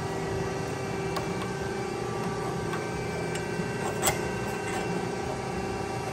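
Steady hum of shop machinery, with a few light clicks and taps of a digital angle finder and a bent steel part being handled on a bench; the sharpest click comes about four seconds in.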